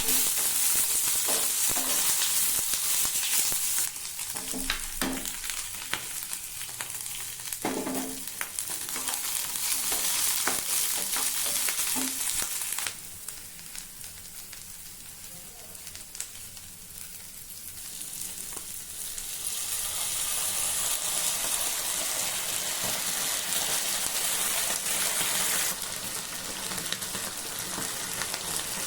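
Food sizzling in hot oil in a pan, with a spatula clicking and scraping against the pan as it is stirred, mostly in the first half. The sizzle drops and swells a few times.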